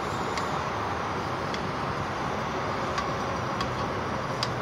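Steady hiss of food cooking on a stovetop, with a few faint ticks scattered through it.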